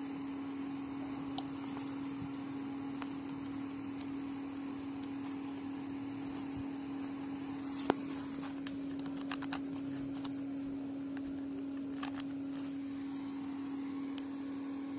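A steady low electrical hum on a single tone, with a few light clicks and knocks from handling small devices and their box, the sharpest click about eight seconds in.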